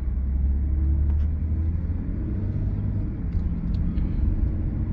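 Car engine running with a low, steady rumble.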